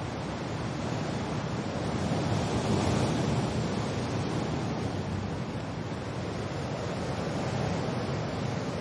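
Steady wind and rain noise, swelling a little louder about two to three seconds in.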